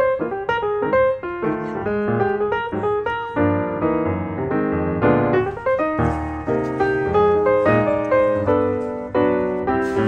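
Background piano music: a continuous run of struck notes, some held as chords.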